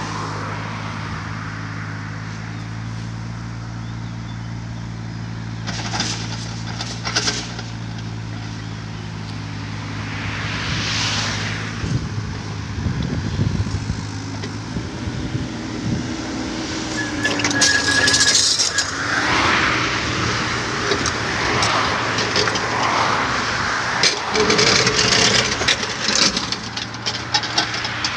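A Kobelco SK35SR mini excavator's diesel engine runs steadily while the machine digs. Sharp knocks come now and then, and a busier stretch of knocks and shifting tones fills the second half as the bucket works the soil. A vehicle passes on the road about eleven seconds in.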